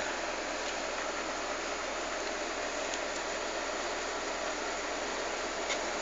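Steady, even background hiss with no clear source, and a light click near the end.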